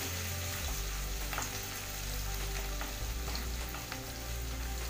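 Grated ginger and chopped garlic sizzling in hot ghee in a metal kadhai, with a spatula stirring through them and lightly scraping the pan a few times.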